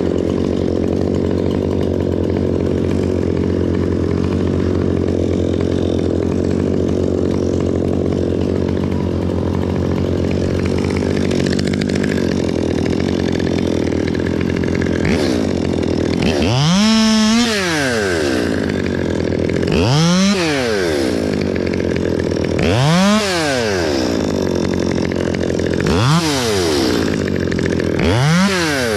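Stihl MS 200T two-stroke top-handle chainsaw idling steadily, then throttled up and back down about five times in the second half, each rev rising and falling in pitch.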